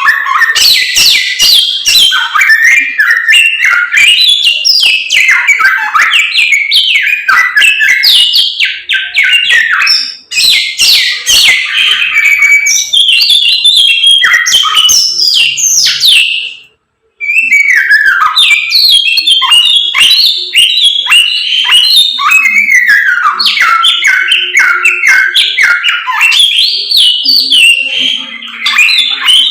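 A caged songbird, kept in Indonesia as a 'samyong', singing loudly and without let-up ('gacor'): a rapid run of varied whistled and chirping notes, with a brief break about 17 seconds in.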